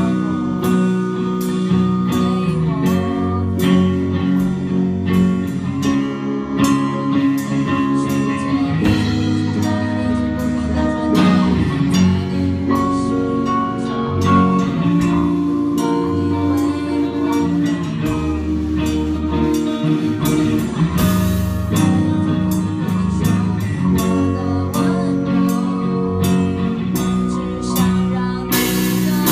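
A rock band playing live: electric guitars over a drum kit, with a woman singing into the microphone. Cymbal crashes ring out twice, once about two-thirds through and once near the end.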